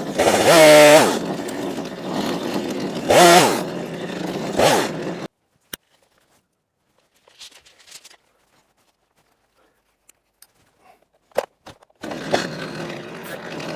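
Small petrol engine revving up and down under load, typical of tree-cutting or sawmill work. It cuts off abruptly about five seconds in, leaving near silence with a few faint clicks, and starts again near the end.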